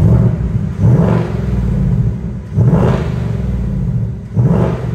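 Ford Mustang Bullitt's 5.0-litre V8 blipped four times from idle with the active exhaust in Track mode, each rev rising sharply and falling back to a deep idle rumble.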